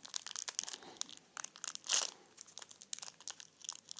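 Plastic wrapper of a sour gum stick crinkling and tearing in the fingers as it is worked open with difficulty: irregular crackles, the loudest about two seconds in.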